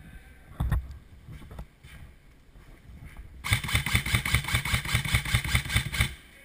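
Airsoft rifle firing a burst on full auto: a rapid, even rattle of shots, about nine a second, lasting some two and a half seconds in the second half. A single knock comes shortly before, near the start.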